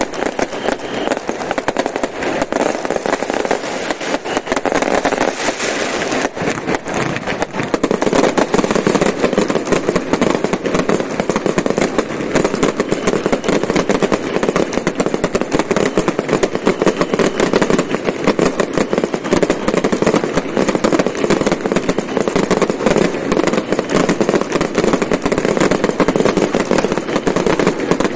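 Aerial fireworks bursting close overhead in a dense, unbroken volley of bangs and crackles, growing louder about eight seconds in.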